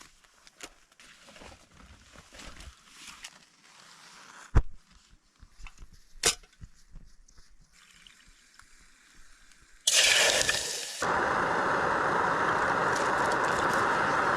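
Faint rustling and two sharp clicks, then about ten seconds in a loud hiss starts suddenly. A second later it turns into a steady, even rushing noise, typical of a camp gas stove burner lit and running.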